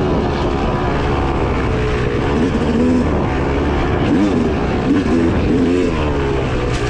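2016 Yamaha YZ250X's single-cylinder two-stroke engine running hard, its pitch rising and falling as the throttle is worked. The revs climb again near the end.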